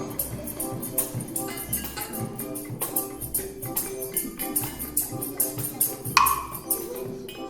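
Music with a tambourine and light percussion shaking and tapping in a quick rhythm over held notes. About six seconds in comes one louder struck note that rings briefly.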